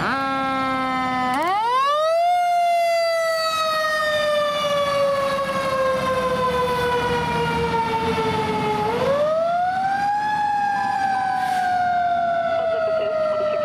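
Fire engine siren sounding: a few short stepped rises in pitch, then a wail that climbs quickly and slides slowly down over several seconds, climbing and sliding down again a second time.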